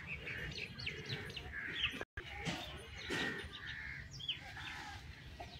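Small birds chirping and calling in short, overlapping notes over a low background rumble, with a brief gap in the sound about two seconds in.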